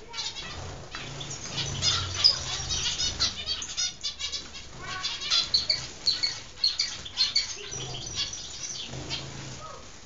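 A group of zebra finches calling: a busy, continuous chatter of short, overlapping chirps and beeps.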